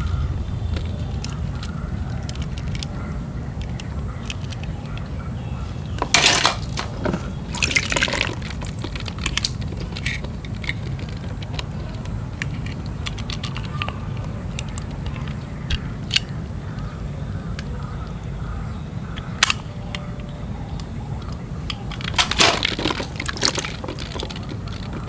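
Hard plastic balls clattering in a plastic tub as hands dig through them and pick out toy cars, in a few short bursts about six and eight seconds in and again near the end, over a steady low background rumble.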